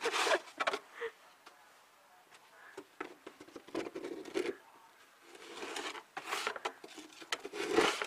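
Winter coat rustling and scraping close to the microphone in several short bursts, with quieter gaps between them.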